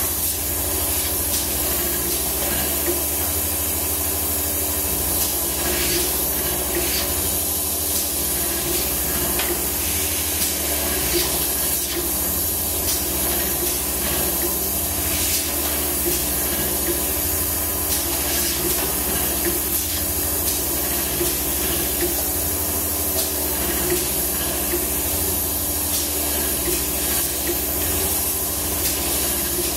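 Vibratory bowl feeder running: a steady mechanical hum under a constant hiss, with flat gaskets rattling and sliding along the stainless track and scattered light clicks as parts are moved along and dropped off.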